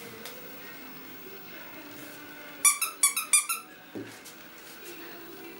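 Squeaky dog toy squeezed in a quick run of about five sharp squeaks near the middle, with a soft thump just after.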